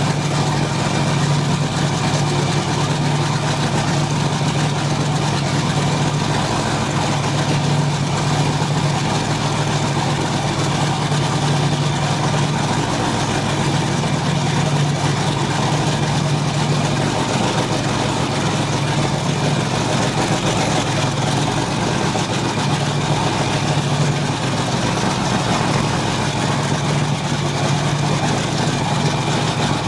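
Boat engines running with a steady low drone that swells and eases slightly.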